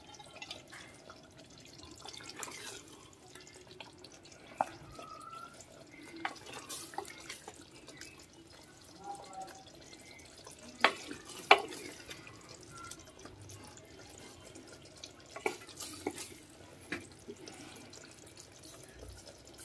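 Wooden ladle serving thick okra curry from a clay pot into a steel bowl: faint wet drips and plops of gravy with scattered light knocks of the ladle against the vessels.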